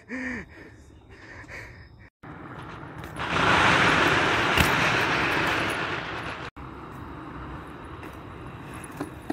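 Tyres rolling on rough pavement, an even noise that comes in sharply about three seconds in and fades over the next three seconds. After that a quieter steady rolling hiss continues.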